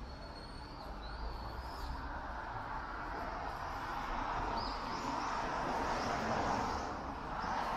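Street traffic: a passing vehicle's tyre and engine noise swells to a peak about two-thirds of the way through, while small birds give short high chirps in the first two seconds.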